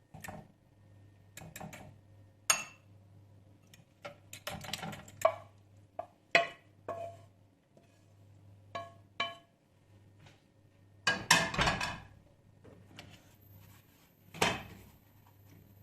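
Kitchenware being handled: irregular clinks and knocks of dishes and utensils, some ringing briefly, with a denser run of clatter about eleven seconds in.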